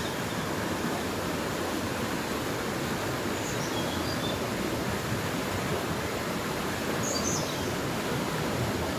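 Steady rush of water from a swollen, flooded river, an even noise that holds without a break.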